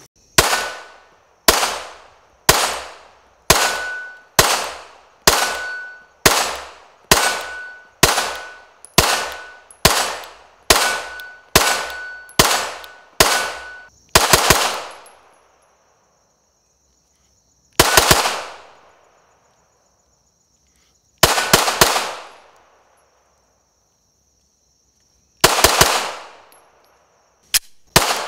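Glock 17 Gen5 9mm pistol firing a long, evenly paced string of shots, about two a second, for roughly the first half. After that come slower single shots and quick doubles and triples, with a steady high buzz of insects underneath.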